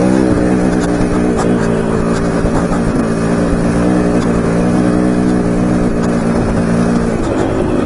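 Single-cylinder, liquid-cooled dirt bike engine running at fairly steady revs while riding a trail, its pitch wavering slightly up and down. It has a freshly rebuilt top end still being broken in, and it is running hot, with the temperature gauge just into the red.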